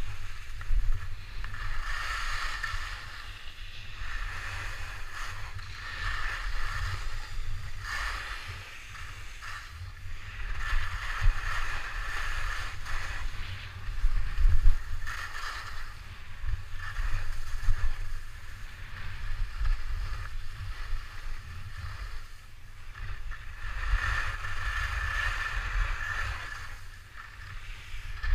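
Skis running down a groomed piste: the hiss and scrape of the ski edges on snow, swelling and fading with each turn, over a low rumble of wind on the camera microphone.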